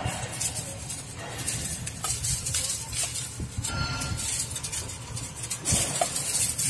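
Metal armour wires of an armoured LT power cable scraping and rustling against one another as they are bent back by hand, in irregular scratchy bursts.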